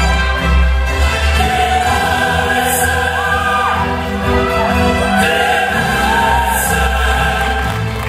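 Music with a heavy bass line and a choir of voices singing over it; the voices come in about three seconds in, and a cymbal-like swell rises twice.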